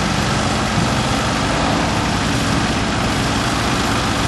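A brush fire truck's heavy engine running steadily with a low hum, under a steady hiss.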